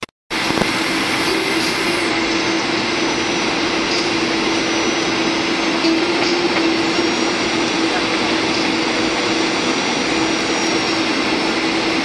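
Cabin noise of a Boeing 737-800 heard from a window seat over the engine on approach: a steady rush of air and the CFM56-7B turbofan's drone, with a steady low hum and a faint high whine over it.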